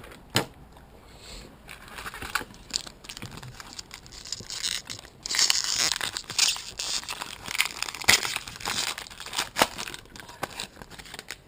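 Foil wrapper of a baseball trading-card pack being torn open and crinkled, an irregular crackling with sharp little clicks.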